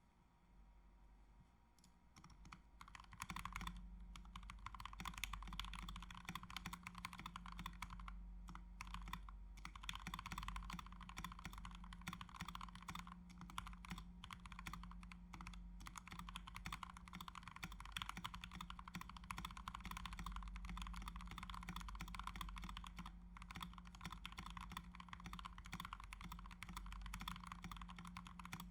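Fast typing on a GMMK mechanical keyboard with Gateron Yellow linear switches lubed with Krytox 205g0: a few scattered keystrokes, then a steady stream of keystrokes from about two and a half seconds in.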